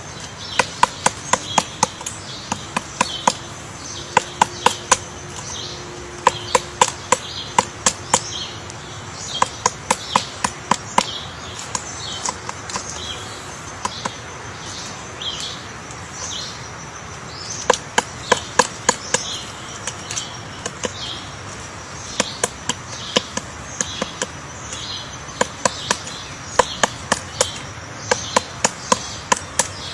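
Woodpecker pecking on wood: clusters of sharp, rapid taps coming in irregular bouts, with short high bird chirps repeating throughout.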